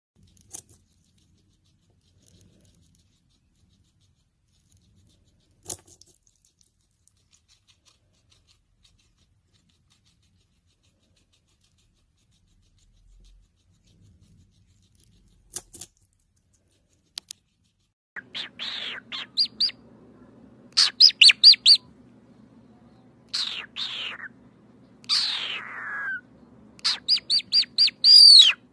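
Mostly near silence with a few scattered clicks, then, about two-thirds of the way in, a bird calling loudly. Quick runs of short high chirps alternate with two longer calls that fall in pitch, over a steady low hum.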